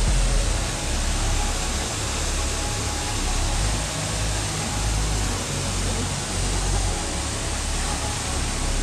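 Steady rush of a waterfall and stream cascading over rocks, with an uneven low rumble underneath.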